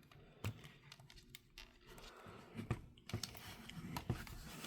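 Faint handling of plastic action figures: light clicks and taps scattered through, with soft rubbing between them.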